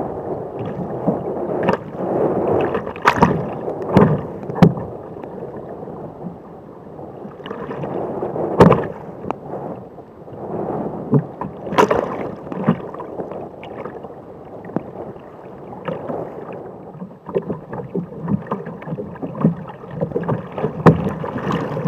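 Paddling a Jackson Cuda 14 sit-on-top kayak through breaking surf: a constant wash of churning water, broken by sharp splashes and slaps of waves and paddle strokes. The loudest splashes come about 3, 4, 8.5 and 12 seconds in.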